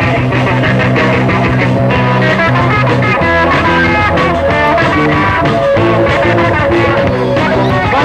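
Rock band playing an instrumental passage live, with guitar to the fore; the chords change about three seconds in.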